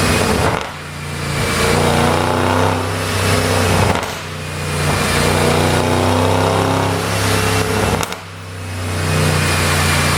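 Audi A8L 4.0 TFSI twin-turbo V8 revving in repeated pulls. The revs drop abruptly about three times, with a sharp crack at two of the drops, the overrun pops the tune is meant to give, and then climb again.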